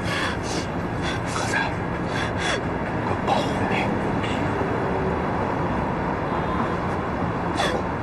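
A young woman crying, with gasping, shaky breaths and soft whimpers, over a steady background hiss.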